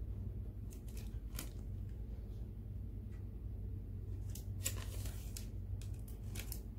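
A few light clicks and rustles from a hand handling the metal arm and black knob of a 12-inch impulse bag sealer, with the busiest cluster about five seconds in, over a steady low hum.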